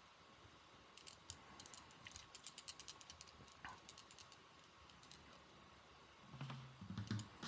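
Near silence with faint small clicks and ticks from hands and hackle pliers working a cock hackle around a hook held in a fly-tying vise, mostly in the first few seconds. A short low hum near the end.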